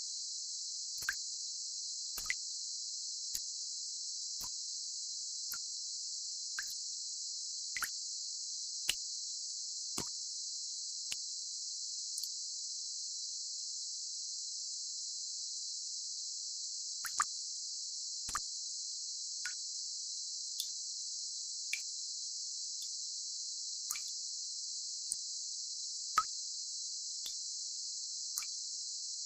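Tinnitus-relief sound track: a steady, even high-pitched hiss, with single water drops plopping about once a second and a pause of about five seconds in the middle.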